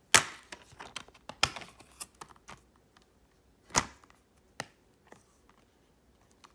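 Plastic Blu-ray case being snapped open and the disc pried off its centre hub: a loud sharp click at the start, another about a second and a half in, a loud click near four seconds, then a smaller one, with light plastic ticks and rattles between.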